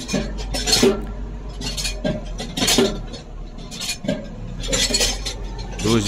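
New Holland TM140 tractor heard from inside the cab while driving across a field: a steady low engine drone, with irregular metallic clinks and rattles every second or so.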